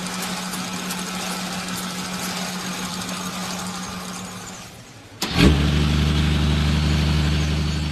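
Engine sound: a noisy running hum fades out about five seconds in, then a click and an engine starts and idles steadily.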